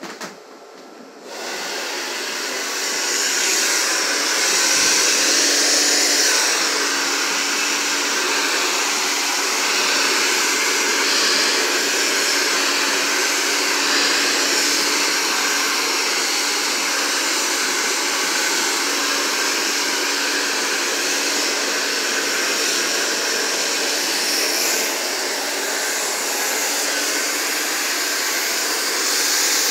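Handheld blow dryer with a concentrator nozzle, switched on about a second in and running steadily, blowing through relaxed hair to smooth it. The air noise grows louder over the first few seconds, then holds even, with a faint low motor hum underneath.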